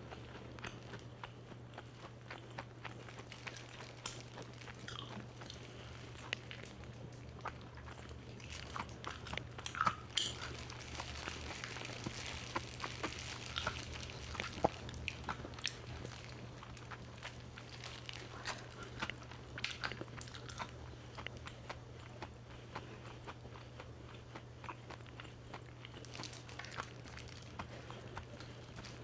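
Close-up biting and chewing of crispy fried chicken (BBQ Pill Crunch), with many sharp crunches of the coating throughout, over a steady low hum.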